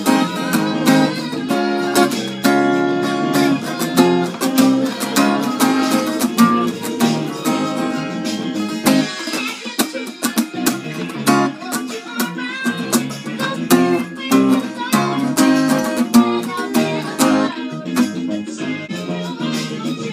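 Cutaway acoustic guitar with a capo, played continuously in a mix of strummed chords and picked notes.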